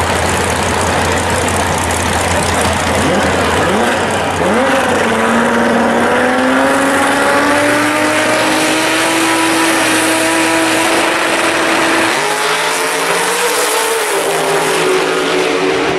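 Drag-race car engines running loud at the starting line, with a sharp rev about four seconds in and then a slowly climbing engine note. The engine sound changes about twelve seconds in as a red first-generation Camaro drag car and its opponent launch down the track.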